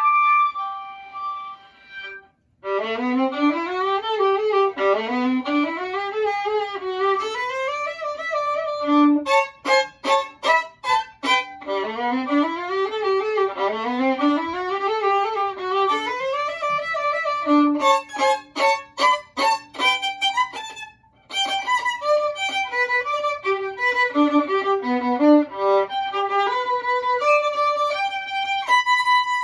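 Solo violin played with a bow: fast rising runs of notes played over and over, with stretches of short, separated notes. The playing breaks off briefly about two seconds in and again about two-thirds of the way through.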